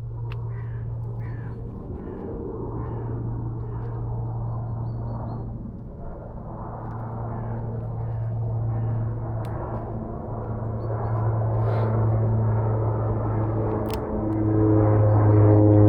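A person blowing on a dying campfire to revive it, in long breaths of two to four seconds with short pauses between, over a low steady hum. The breaths grow louder toward the end.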